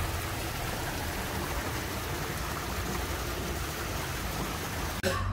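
Small garden waterfall splashing steadily into a koi pond, a constant rushing and pattering of water.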